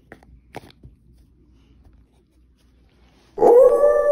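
A child's voice howling like a wolf: one long held note that starts about three and a half seconds in, rising briefly and then holding steady. It follows a few faint taps of toy figures handled on carpet.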